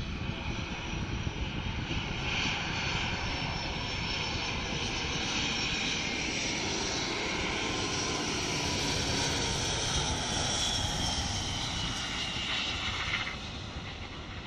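Airliner coming in to land overhead: a steady engine rush with a faint high whine sliding slowly down in pitch. It grows louder through the middle and falls away sharply near the end.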